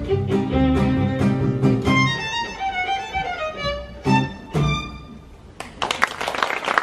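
Live violin playing over low, rhythmic string accompaniment. The violin line descends, and the piece ends with two short chords about four seconds in. Then the audience breaks into applause.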